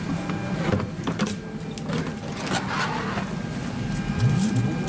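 Airliner cabin ambience during boarding: a steady hum of the aircraft's air and electrical systems, with rustling and a few light clicks as someone moves down the aisle. About four seconds in, a whine begins that rises steadily in pitch.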